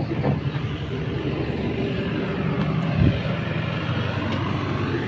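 Engine of a small tourist road train running steadily as it drives past. A single short knock comes about three seconds in.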